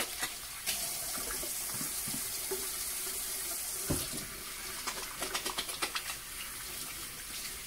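Kitchen sink tap running steadily while hands are washed under it, the water splashing over them in a quick run of splashes about five seconds in. A single knock sounds near the middle.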